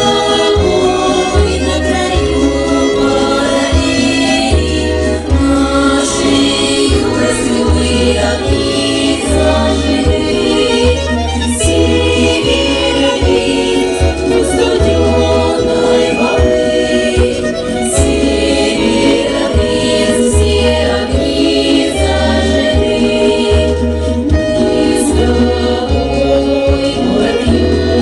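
Russian folk song performed by a women's folk choir, voices singing together over instrumental accompaniment with a steady, pulsing bass line.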